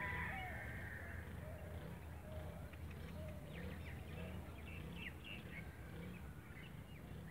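A rooster's crow trailing off about a second in, followed by scattered short chirps of small birds, over a steady low hum.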